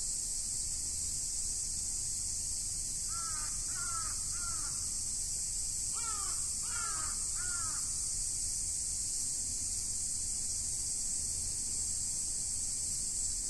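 A crow cawing in two runs of three harsh, downward-arching caws, the first about three seconds in and the second about six seconds in. A steady high-pitched hiss runs under it.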